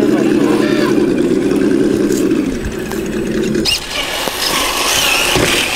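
Simulated engine note from the add-on sound system of a Traxxas TRX-4 scale RC crawler, played through its small speaker: a steady, pulsing low engine hum that cuts off suddenly about two-thirds of the way in, leaving quieter mixed noise.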